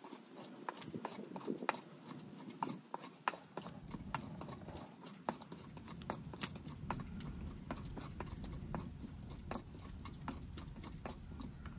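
Pestle striking and grinding in a small stone mortar: sharp, irregular knocks, a few a second.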